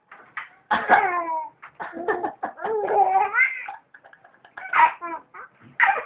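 Baby laughing in several separate bursts, set off by an older child's pretend coughing.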